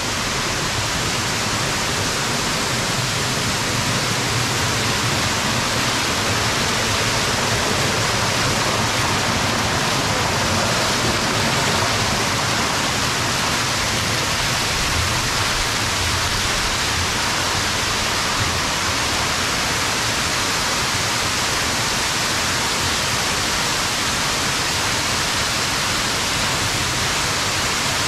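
Waterfalls pouring down terraced stone walls and splashing over rocks: a steady rushing of water that does not let up.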